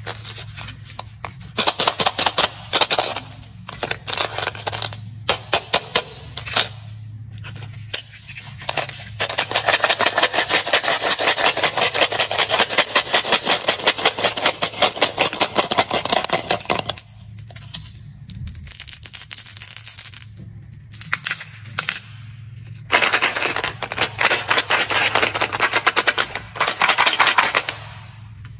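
White chocolate Smarties rattling against each other and their cardboard box: short rattling bursts as the box is shaken, then a long unbroken clatter as the sweets pour out into a hand. Another long stretch of rattling near the end.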